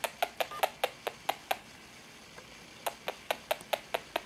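Cat purring, heard as a crackly run of quick clicks, about five a second, in two stretches with a pause between.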